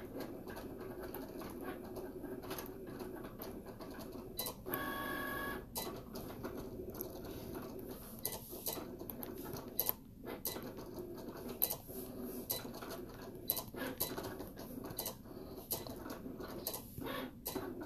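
Fingertips typing on an iPad's glass screen and on-screen keyboard: a run of short, irregular clicks and taps. About five seconds in, a brief pitched tone sounds for about a second.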